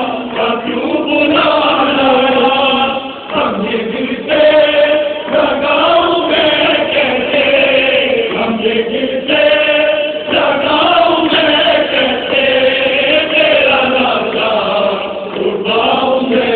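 A group of mourners chanting a Muharram lament (noha) together in long, rising and falling sung phrases.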